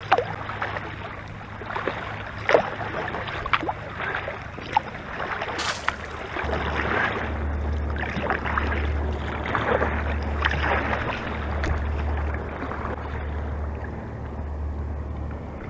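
Kayak on choppy lake water: paddle strokes and small waves splashing and lapping against the hull at irregular intervals. A low wind rumble on the microphone sets in about six seconds in.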